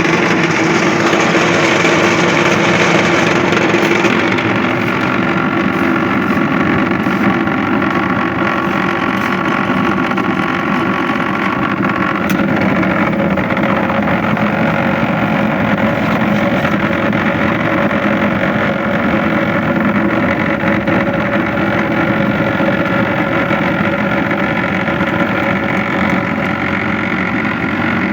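An engine on concrete-pouring machinery running steadily with a constant hum, a little quieter after about four seconds.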